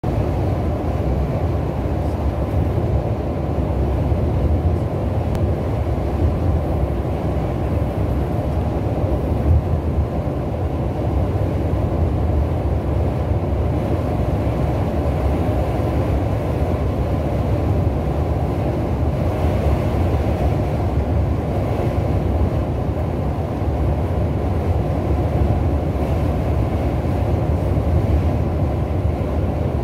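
Steady low rumble of a coach driving along a motorway, its engine, tyres and road noise heard from inside the cabin.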